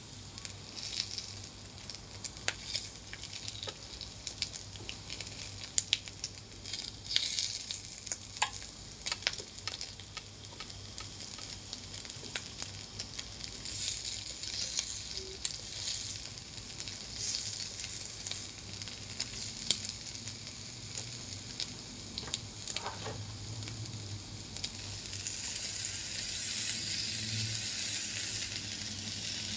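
Pork slices sizzling on a hot electric grill plate, with frequent short clicks and taps of wooden chopsticks against the plate as the slices are turned. The sizzle grows louder over the last few seconds as raw pork belly slices go onto the plate.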